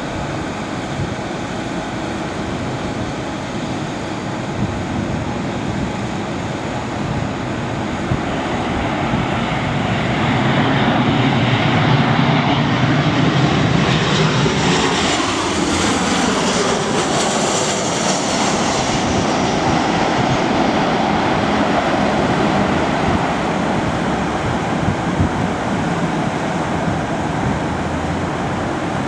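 Boeing 737-800 jet airliner's CFM56-7B turbofan engines on landing approach, growing louder as the jet nears, with a whine that falls in pitch as it passes about fifteen seconds in; the engine noise then carries on steadily.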